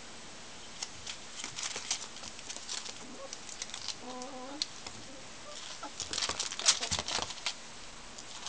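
Two ferrets wrestling in play: quick scuffling patters and clicks of paws and claws, busiest about six to seven seconds in. About four seconds in comes a short wavering clucking call, a ferret dooking in excitement.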